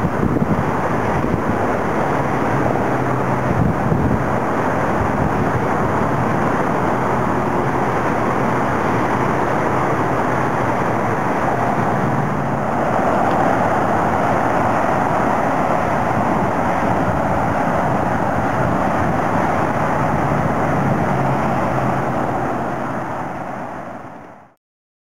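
Steady rushing outdoor ambience beside the river, getting a little brighter about halfway through and fading out just before the end.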